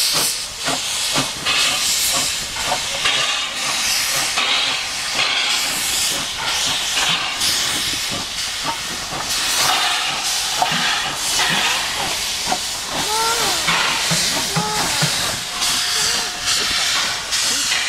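Steam locomotive hissing and exhausting in slow, regular beats as it pulls a train past at low speed. A few short squeals come in the second half.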